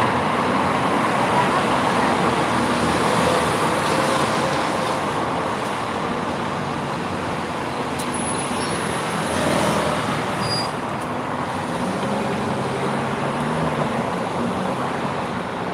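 Steady road traffic noise from vehicles passing on a busy road.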